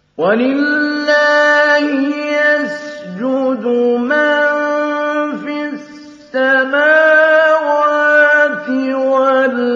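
Male voice reciting the Quran in the melodic mujawwad style: long held notes with ornamented turns, in phrases broken by short breaks about three and six seconds in. It comes in right after a silent pause.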